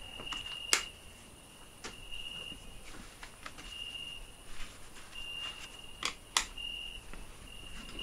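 Crickets chirping in short high trills with gaps between them. A sharp click about a second in, as a wall light switch is pressed, and two more sharp clicks close together about six seconds in.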